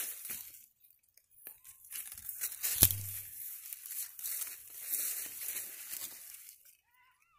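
Dry, drought-killed corn leaves and husks crackling and tearing in irregular stretches as the plants are handled and pushed through, with one sharp snap about three seconds in.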